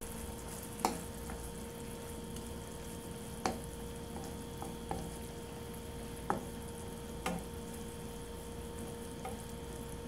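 Octopus pieces sizzling in a soy-sauce mixture in a nonstick pan while a wooden spatula stirs them, with a few sharp knocks of the spatula against the pan.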